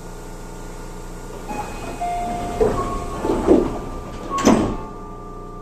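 Tobu 30000 series train's passenger doors closing at a station stop: short chime tones, then the sliding doors thud shut in three strokes, the last and loudest about four and a half seconds in, over the steady hum of the stationary train.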